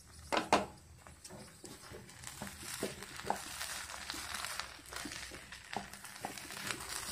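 Wooden spatula stirring and scraping cooked oats upma around a white-coated frying pan, with small scattered knocks and a faint sizzle underneath; two sharp clicks about half a second in.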